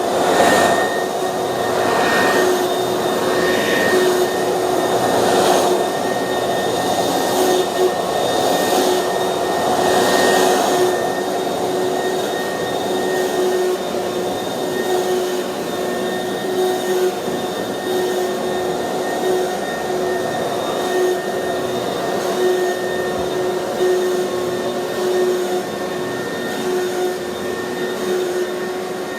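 Oreck XL upright vacuum cleaner running with a steady motor whine over a rushing airflow. The rush swells in waves every second or so for the first ten seconds, then settles to an even drone.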